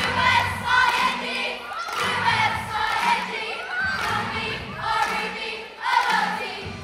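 A large crowd of children singing and shouting along together over loud music with a repeating bass line.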